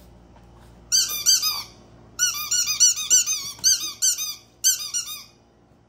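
Squeaky dog toy being squeezed in quick runs of short, high squeaks, in four bursts after a pause of about a second.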